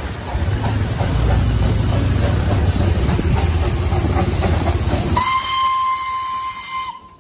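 Steam locomotive running with a loud, rushing rumble, then a single steady whistle blast of about a second and a half that dips slightly in pitch as it stops.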